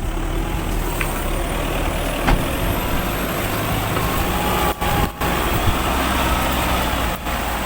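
A vehicle's engine running under heavy throttle with a slowly rising high whine as the driver tries to pull a stuck tyre out of mud on a steep slope.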